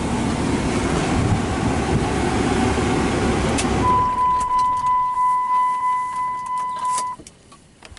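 The Dodge Ram diesel truck running, heard inside the cab, stops about three and a half seconds in with a click as the ignition is switched off. A single-pitched warning chime then dings in a quick, steady run of about two to three dings a second for some three seconds, and cuts off with another click.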